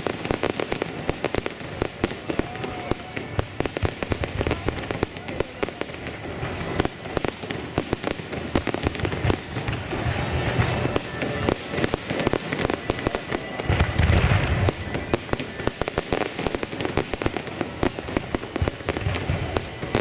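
Aerial fireworks display: dense, rapid crackling and popping of many shells bursting at once, with heavier booms about halfway through and again a few seconds later.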